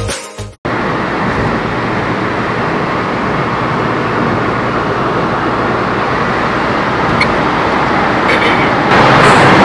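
Music cuts off about half a second in, then a car driving along a road: steady road and engine noise, getting a little louder near the end.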